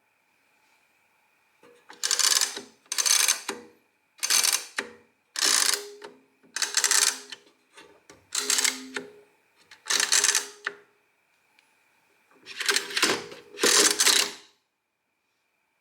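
The metal mechanism of an Add-O-Matic coaxial-wheel adding machine being worked by hand: about nine separate short mechanical strokes, each about half a second to a second long, with irregular pauses between them.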